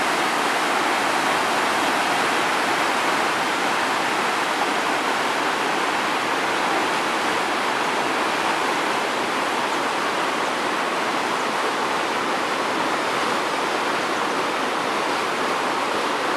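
Storm-swollen river in spate, its muddy floodwater rushing and churning over the bed after heavy rain: a steady, loud wash of turbulent water.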